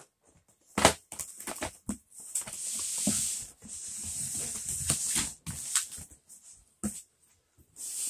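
Cardboard boxes and packaged string lights being handled: a sharp knock about a second in, then a long rustling scrape as a cardboard box is shifted across carpet, and more knocks and rustles of packaging near the end.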